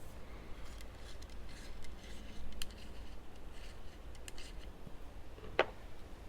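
Scattered light clicks and rustles of small objects being handled, with one sharper click about five and a half seconds in, over a low steady hum.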